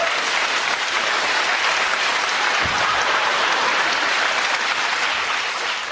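Live audience applauding steadily.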